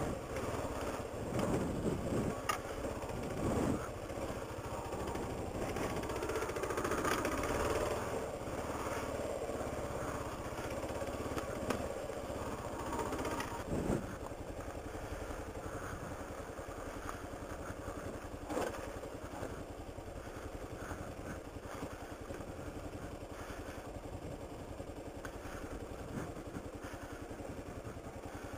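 Kawasaki KLR650 dual-sport motorcycle's single-cylinder engine running while ridden over a rough dirt trail, with frequent knocks and rattles from the bike over the ground. About halfway through the sound changes suddenly to a steadier, slightly quieter run with fewer knocks.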